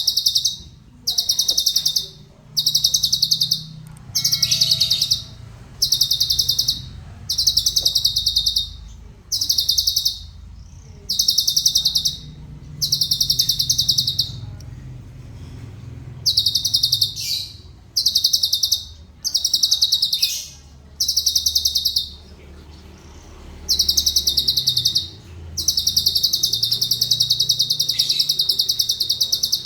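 Cucak cungkok songbird singing a training (masteran) song: repeated fast rolling trills, each about a second long with short pauses between, over a faint low background hum.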